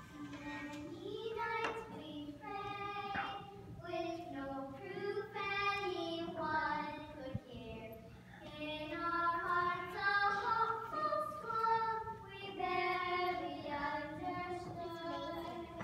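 Children singing a slow melody with long held notes.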